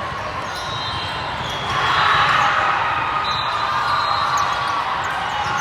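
Din of a large volleyball hall during play: crowd voices and volleyballs being hit and bouncing, echoing, with the noise swelling about two seconds in.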